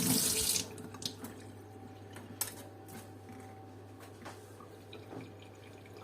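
Water running from a tap into a sink, shut off about half a second in, followed by scattered drips and a few light clicks.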